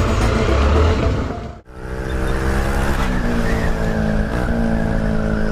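Motorcycle engine running, heard on a rider's camera with wind noise; after a brief drop-out about a second and a half in, the engine note sinks slightly and then holds steady.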